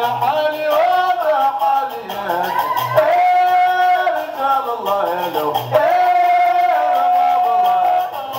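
Live Gnawa music: voices chanting in long, gliding held notes over low drum beats and percussion.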